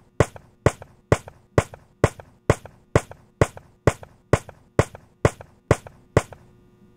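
A series of sharp, evenly spaced knocks, about two a second, some fourteen strikes in all, stopping a little after six seconds in.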